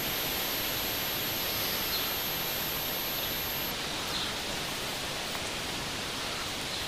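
Steady, even hiss of outdoor background noise, with a few faint short high chirps.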